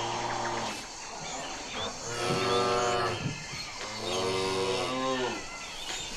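Cow mooing: one moo tails off at the start, then two long moos follow a second or two apart.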